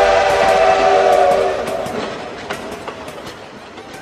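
Train horn blowing a chord of several steady notes that stops about one and a half seconds in, followed by scattered clicks and faint falling tones of a train as the sound fades away.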